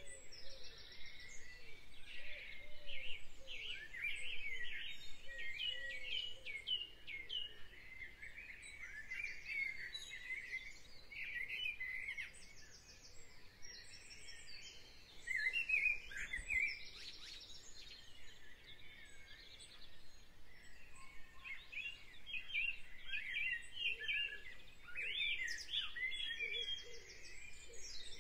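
Several songbirds chirping and singing over one another: short rising and falling whistles and quick trills, busiest a few seconds in, around the middle and again near the end.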